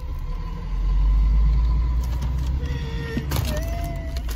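Low rumble inside a car's cabin, strongest in the first half, with a short rustle or knock near the end.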